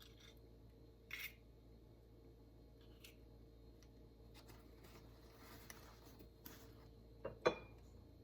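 Faint kitchen handling noises: a few light clicks and scrapes, a short rustle about a second in, and two sharp knocks near the end, the louder second one ringing briefly.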